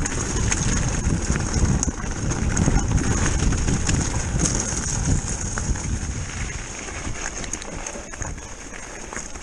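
Electric mountain bike tyres rolling fast over loose rocky stone, with stones crunching and clicking under the wheels, the bike rattling and a low rumble of wind. The clatter eases after about six seconds as the track turns smoother.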